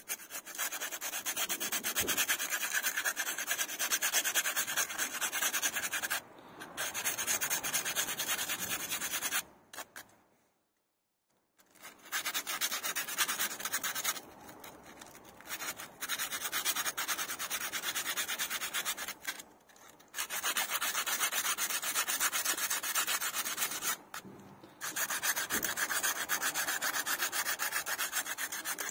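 Corroded battery cable clamps being scrubbed clean with a small hand tool: a dry, rapid back-and-forth rasping, in long spells broken by brief pauses, one longer pause about ten seconds in.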